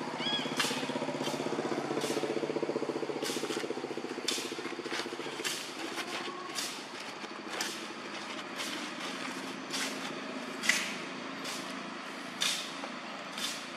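Grass-cutting brush cutter engine running steadily, louder in the first few seconds and then fainter, with sharp ticks about once a second.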